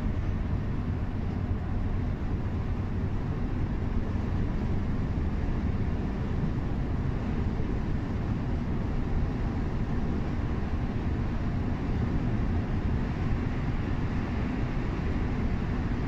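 Intercity coach cruising on a highway, heard from inside the cabin: a steady deep rumble of engine and road noise that holds an even level throughout.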